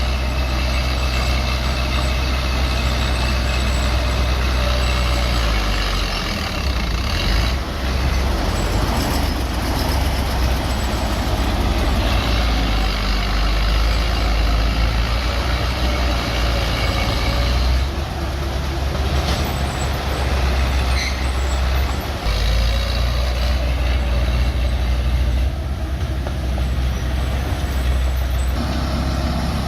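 Bulldozer's diesel engine running hard as it pushes earth, its pitch and load shifting several times, with higher whining and squealing tones over the low rumble.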